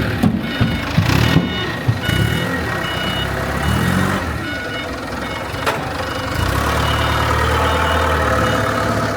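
Heavy machine's engine running, settling into a steady low drone in the second half, with short high beeps repeating over it.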